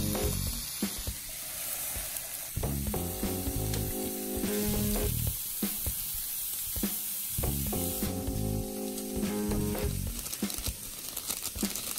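Pork belly slices sizzling as they fry in a hot pan, with stirring in a pot of boiling noodles, over background music.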